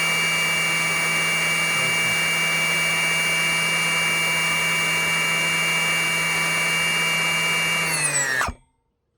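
Greenworks 40V battery chainsaw's electric motor running at a steady high speed with a constant whine, then winding down with a falling pitch and stopping about eight and a half seconds in.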